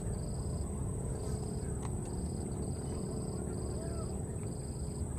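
Outdoor plantation ambience: a steady low rumble, most likely wind on the microphone, under an insect calling in regular half-second buzzes a little more than once a second, with a thin steady high whine behind.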